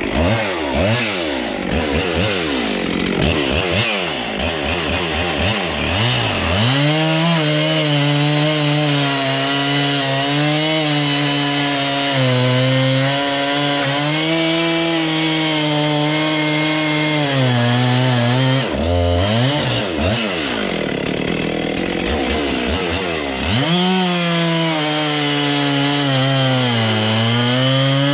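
Two-stroke chainsaw revved up and down a few times, then held at high revs cutting through sawmill cutoffs, its pitch sagging as the chain bites. About two-thirds of the way through it drops back to low revs, then revs up again and resumes cutting.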